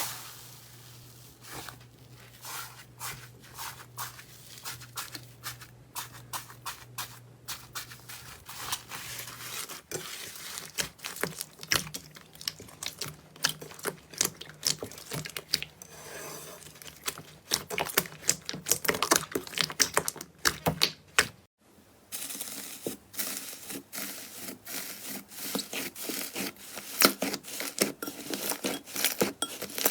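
Slime being squeezed, poked and stretched by hand, giving a dense run of irregular sticky crackles, pops and clicks. The sound briefly drops out about 21 seconds in, then carries on louder.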